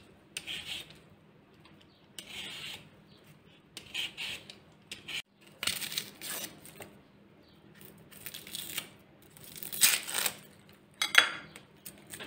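Potato being peeled by hand: irregular scraping strokes of a vegetable peeler and a knife blade against the potato skin. Near the end, dry onion skin crackles as it is pulled off.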